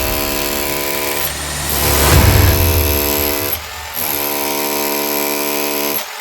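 SDS hammer drill running under load while drilling into a dense concrete block, its motor giving a steady whine over the rumble of the hammering. It stops briefly twice, about midway and near the end.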